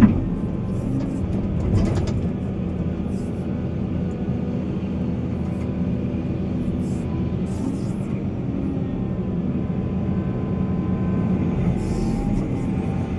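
Heavy diesel machinery engine running steadily under load, with a sharp knock at the start and a smaller one about two seconds in. Music plays over it.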